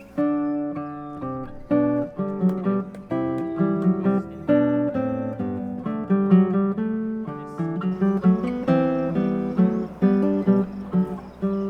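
Background music: an acoustic guitar picking a quick tune, several notes a second.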